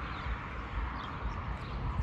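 Outdoor street ambience: a steady, uneven low rumble with faint, short bird chirps scattered through it.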